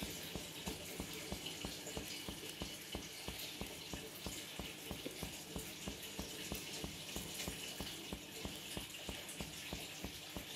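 Black iron kadhai heating oil on the stove as mustard oil is poured in: a steady hiss with a fast, even ticking about five times a second.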